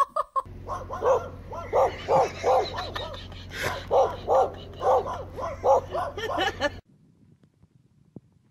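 A small dog barking over and over in a quick steady run, about three barks a second, stopping abruptly near the end.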